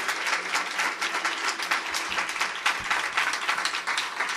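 Audience applauding: many hands clapping at a steady, even level.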